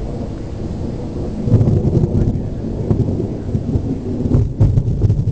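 Thunder from a nearby lightning strike: a low rumble that swells loudly about one and a half seconds in and rolls on, with sharp crackles near the end.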